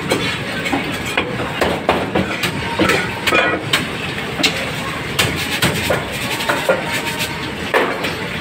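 Irregular knocks and clatter, several a second, over a steady background din.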